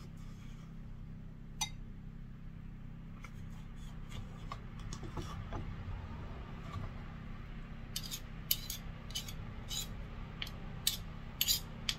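Metal spoons clinking and scraping against a glass mixing bowl and a plastic tub as curry paste is scooped out and stirred into a sauce. A few scattered clicks at first, then a run of louder, quicker clinks in the last few seconds, over a steady low hum.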